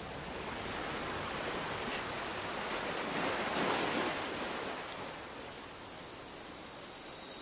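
Ocean surf: waves washing in a steady rush that swells to a peak about halfway through and then subsides. A steady high-pitched tone sits over it throughout.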